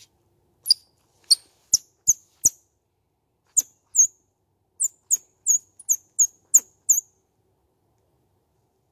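Distressed baby squirrel call blown on a blade of lemongrass held between the lips: about fourteen sharp, high squeaks, each dropping in pitch. A first group of five is followed by a short pause and a faster run of nine.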